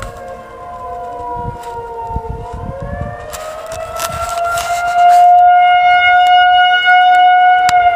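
Outdoor civil-defense tornado sirens wailing. The pitch sags for the first couple of seconds, then climbs to a steady high tone that gets much louder about five seconds in. It is a tornado warning signal, which the listener believes was set off by mistake.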